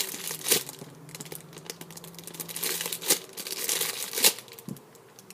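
Plastic packaging around a squishy toy crinkling and rustling as it is handled, with a few sharper crackles about half a second in, around three seconds and just after four seconds.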